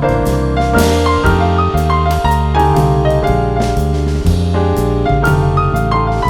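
Background music led by piano, with notes struck at a steady pace.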